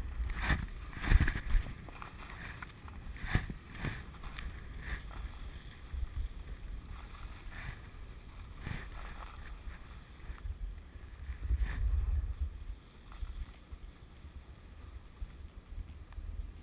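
Riding down a groomed slope on packed snow: edges scraping and swishing over the snow, with several sharper scrapes in the first few seconds and another burst about three-quarters of the way in. Wind rumbles on the microphone throughout.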